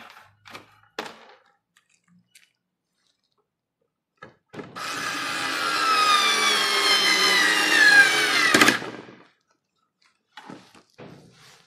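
Daewoo 3.6 V lithium cordless screwdriver driving a screw for about four seconds, its motor whine falling in pitch as it slows under load, then stopping suddenly. Light handling clicks before and after.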